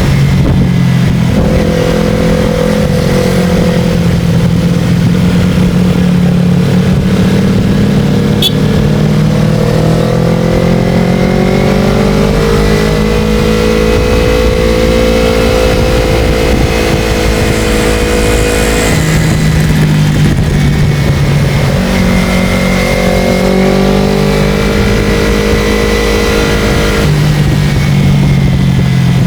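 Motorcycle engine running while riding, its pitch rising and falling several times as the engine speed changes, over a steady low rumble.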